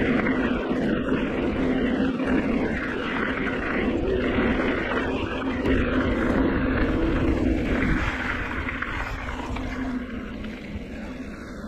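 Wind rushing over a handlebar-level action camera's microphone, with the tyres of a Specialized Turbo Levo FSR e-mountain bike rolling on the paved path, as the bike rides at speed. The rush eases and gets quieter over the last few seconds as the bike slows into an open area.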